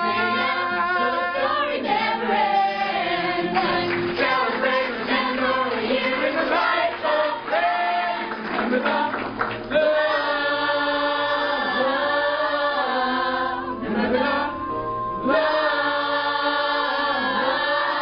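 A group of student singers performing a song in harmony, several voices with long held notes and a brief pause about fourteen seconds in.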